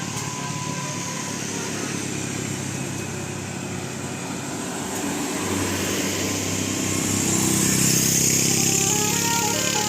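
Road traffic passing: engines and tyre noise swell to a peak about eight seconds in as a vehicle goes by. Near the end a few short stepped notes of a multi-tone musical 'telolet' bus horn begin.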